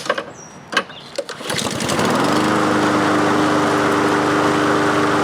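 A few clicks and knocks, then a Honda lawn mower engine pull-started: it catches about a second and a half in, spins up in pitch and settles into a steady run, its governor spring just moved to another hole to raise its speed.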